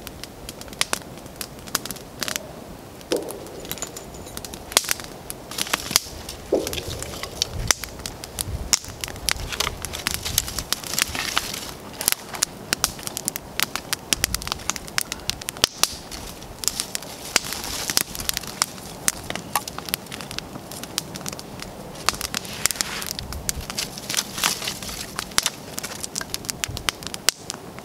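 Small campfire of split wood burning, crackling with irregular sharp pops.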